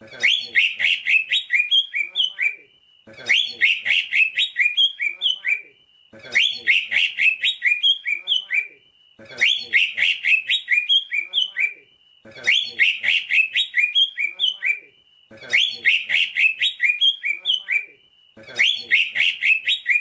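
Green leafbird (cucak ijo) singing: a phrase of rapid, clear chirping notes lasting about two and a half seconds, repeated about every three seconds with short pauses between.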